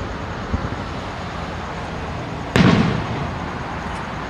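Aerial fireworks exploding: one sharp bang about two and a half seconds in, fading away over a second, over continuous rumble and crackle from other shells.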